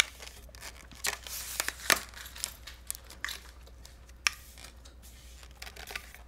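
Carbon-fibre tripod legs being opened and extended: scattered sharp clicks and knocks from the twist-lock leg collars and sections being handled, the loudest about four seconds in.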